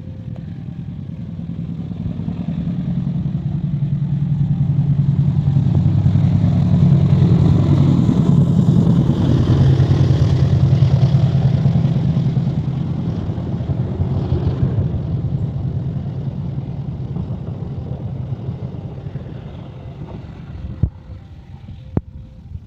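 Diesel locomotive passing with its train: the deep engine drone swells as it approaches, holds loudest for several seconds, then fades away. Two sharp clicks near the end.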